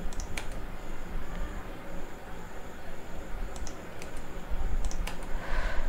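A few separate clicks of computer keyboard keys, the Tab key being pressed to indent list items into sub-items, over a steady background hum and hiss.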